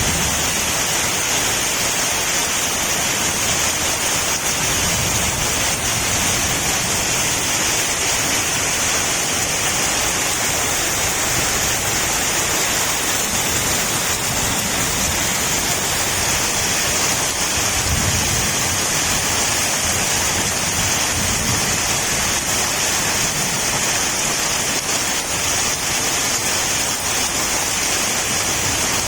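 Heavy rain falling, a steady dense hiss with no let-up.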